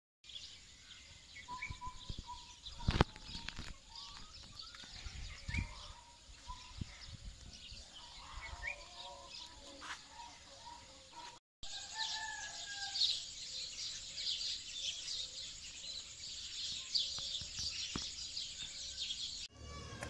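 Birds chirping and calling outdoors: scattered short calls at first, then, after a brief break about halfway, a denser chorus of high chirping.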